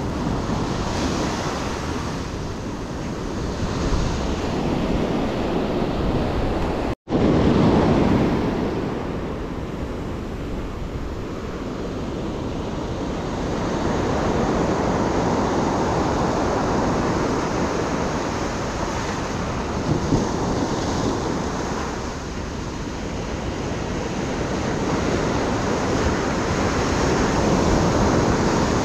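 Ocean surf breaking and washing up a sandy beach, swelling and easing in loudness with the waves, with wind on the microphone.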